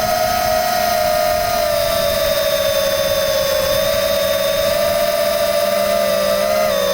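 FPV multirotor's electric motors and propellers whining steadily in flight, heard from the camera mounted on the craft; the pitch drifts slightly up and down as the throttle changes.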